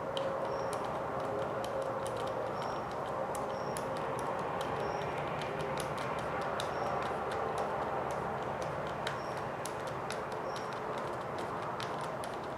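Scattered light clicks and ticks of a screwdriver and small plastic parts as a screw is driven into an RC car kit's battery door, over a steady low hum. A short high chirp recurs about once a second.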